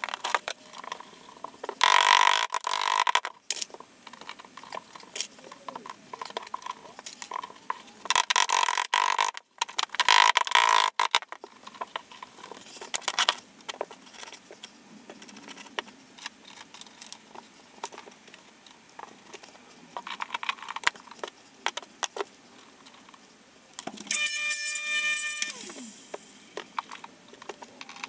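Small glass mosaic tiles clicking and clattering as they are handled and pressed into the thinset. Loud rasping bursts come about two seconds in and again for a few seconds around the middle, as painter's tape is pulled off the roll to hold the tiles in place. A short squeal comes near the end.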